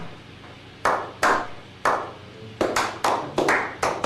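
A series of sharp knocks or thuds, about a dozen, spaced about half a second to a second apart at first and coming faster in the second half.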